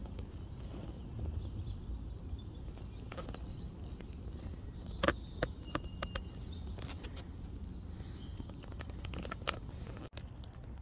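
Outdoor background with a steady low rumble, and a short cluster of sharp clicks and rustles about halfway through, with a brief faint high note among them.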